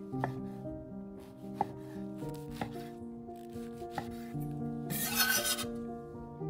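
A chef's knife cuts through soft white bread and knocks on a wooden cutting board a handful of times. About five seconds in, the blade scrapes the bread cubes across the board.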